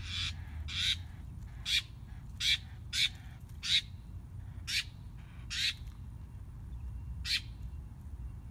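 A bird giving about nine short, harsh calls at uneven intervals, most of them close together in the first six seconds and one more a little later.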